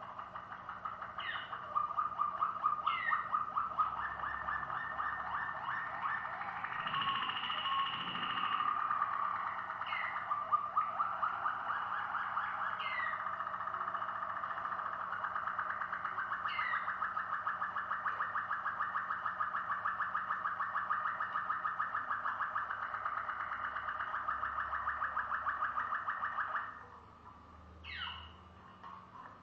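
Malinois Waterslager canary singing a long run of fast, low rolling trills that changes its pattern a few times and stops abruptly near the end. Short, high falling chirps come every few seconds.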